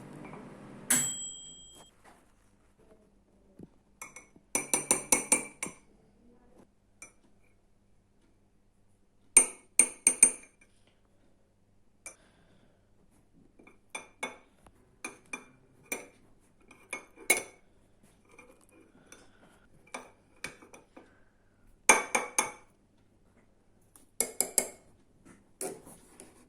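Metal cutlery clinking against dishes: scattered single clinks and several runs of quick taps, as of a utensil striking the side of a bowl. About a second in, a steady hum cuts off with a sharp click.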